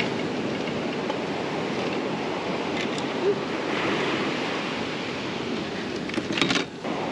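Ocean surf breaking and washing up the beach in a steady rush. A few light knocks of fishing gear being handled on a beach cart, with a louder clatter near the end.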